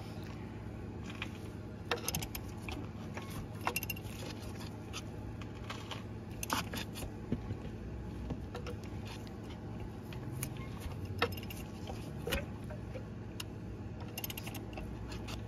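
Scattered metallic clicks and scrapes of a ratchet handle and shallow socket being worked on a car's crankshaft pulley bolt, over a steady low hum.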